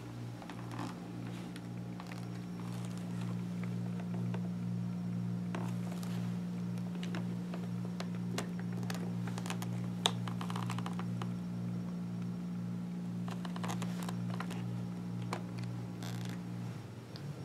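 Light rustles and scattered clicks from hands peeling and pressing Velcro adhesive speaker pads onto the inside of a Schuberth C3 motorcycle helmet shell, with one sharper click about ten seconds in. A steady low hum runs underneath and stops shortly before the end.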